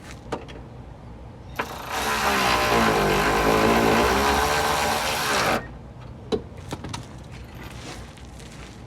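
Impact wrench running for about four seconds while driving in a K-frame bolt, its pitch dropping under load in the middle and rising again. There are a few sharp tool clanks before and after.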